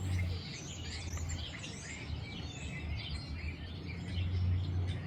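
Several small birds chirping and twittering in quick, overlapping calls, over a steady low hum.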